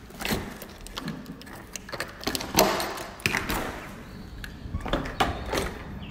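A glass-paned balcony door being handled and opened: a string of clicks and knocks from the handle and latch, with a louder rush of noise about two and a half seconds in as the door swings open.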